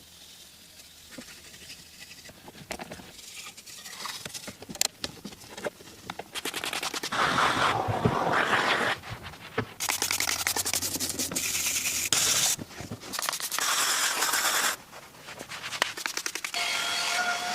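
Scratching and scraping with scattered clicks, then from about seven seconds in several loud stretches of steady hiss, each lasting one to three seconds and cutting off suddenly.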